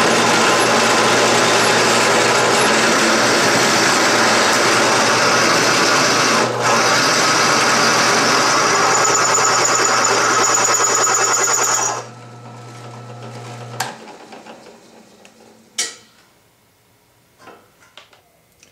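Drill press running under load, its bit cutting a hole through a metal guide rail: a loud, steady cutting noise over a low motor hum. The cutting stops about twelve seconds in, the motor cuts off a couple of seconds later, and a few light clicks follow.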